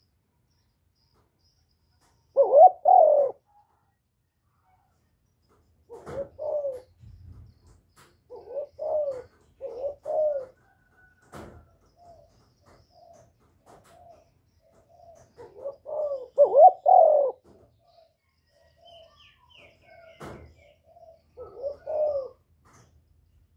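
Spotted dove cooing: several loud multi-note coo phrases, with softer short coos in between. Two brief clicks sound in the gaps.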